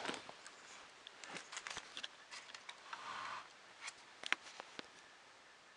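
Faint handling of a cable and its plastic connector: scattered small clicks, with a brief soft rustle about three seconds in.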